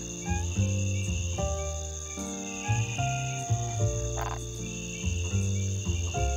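Night-time crickets: a steady, high-pitched trilling chorus over slow, gentle background music with held notes that change every half second or so.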